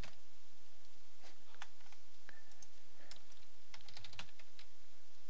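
Typing on a computer keyboard: irregular key clicks, busiest about three to four seconds in.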